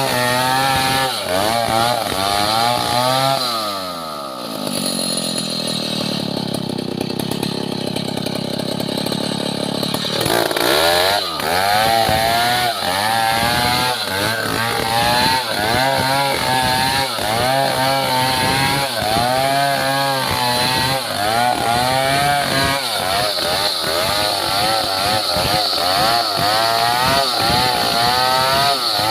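Chainsaw cutting wood, its engine pitch wavering up and down under load. About three to four seconds in, the pitch falls into a lower, steadier drone for roughly six seconds, then climbs back up around ten seconds and keeps wavering.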